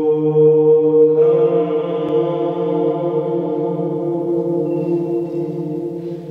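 A chanted mantra held on one long droning note, which shifts to a new note about a second in and slowly fades.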